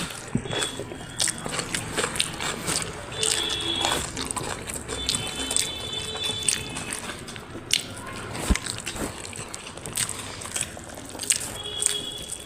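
Close-up eating sounds of rice and curry eaten by hand: wet squelching and slurping, biting and chewing, with frequent small lip smacks and clicks.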